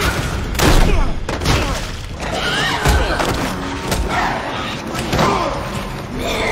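Fight-scene sound mix: a monster's snarls and shrieks and a man's grunts, broken by heavy thuds and bangs of blows, with dramatic score underneath.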